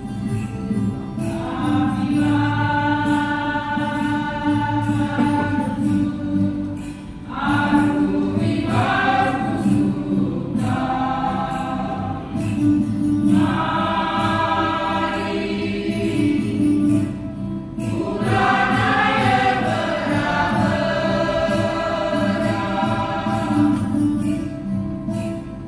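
Church choir singing a Christian song of praise in long held phrases, with short breaks between them.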